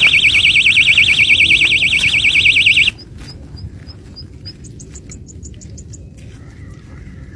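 Electronic fishing bite alarm on a rod rest sounding a loud, fast-warbling tone for about three seconds: a fish has taken the bait. A run of softer, higher short beeps follows, quickening, until about six seconds in.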